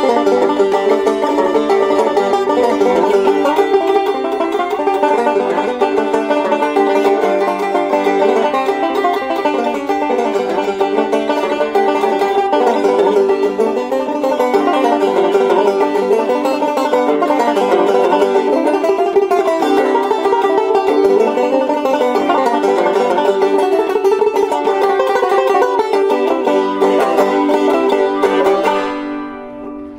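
Background instrumental music, fading out near the end.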